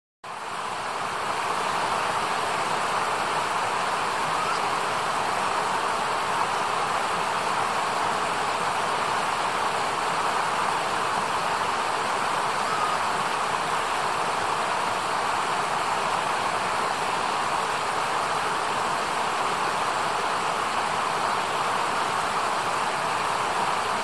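Shallow rocky mountain river rushing over stones, a steady even rush that fades in over the first second or two.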